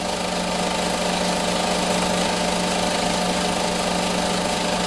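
Steady mechanical hum and rattle of a running film projector, one even pitch with no changes.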